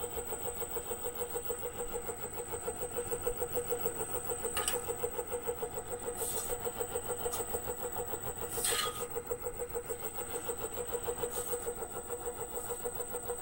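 The 2 hp three-phase AC motor of a 2x72 belt grinder runs without its belt on a variable-frequency drive at reduced speed. It gives a steady hum that pulses rapidly and evenly, with a faint high whine and a few light clicks. The motor shakes the grinder, and the owner thinks the vibration comes from inside the motor, maybe from an imbalance.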